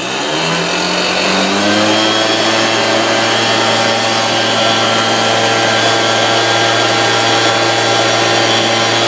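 Gas-powered backpack leaf blower revving from idle up to full throttle over about a second and a half, then running steady at full speed with a strong rush of air from its nozzle.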